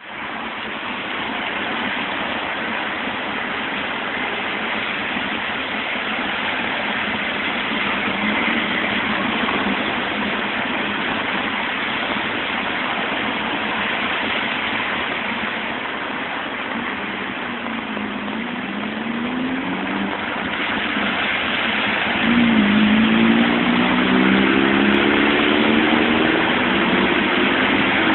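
Cars driving through deep standing water on a wet street: a steady hiss of tyres and splashing spray. Passing engines rise and fall in pitch, and about two-thirds of the way in a louder engine revs up, rising in pitch as it pulls away.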